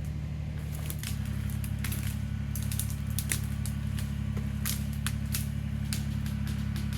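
Kubota BX23S compact tractor's three-cylinder diesel running under load as it drags a log on a rope, the engine note stepping up about a second in. A scatter of sharp cracks and snaps sounds over the engine.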